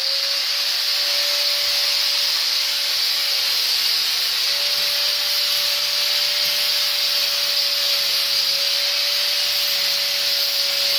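Power drill spinning a flap sander wheel against a plywood edge: a steady motor whine under a loud, even sanding hiss, held at constant speed throughout.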